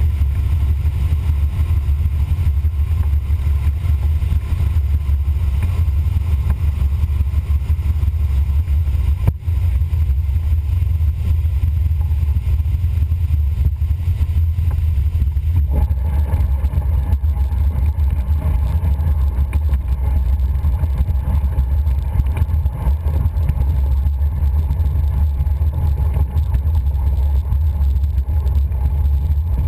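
H-36 Dimona motorglider's piston engine and propeller running at low power, a loud steady low rumble heard from inside the cockpit. There is a single knock about nine seconds in, and about halfway through a higher hum joins the rumble.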